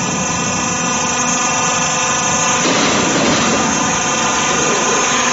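Corrugated roof-sheet curving machine running, a steady mechanical drive noise carrying several steady whining tones. About two and a half seconds in the tones fade and a more even, rougher running noise takes over.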